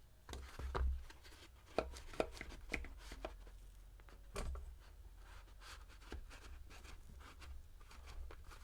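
Irregular light clicks and taps of small tools and metal hardware being handled during guitar assembly, over a faint low hum.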